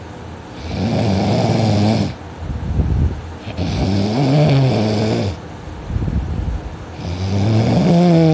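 Loud, heavy snoring from a person sleeping deeply on their back: three long snores about three seconds apart, with quieter breaths between them.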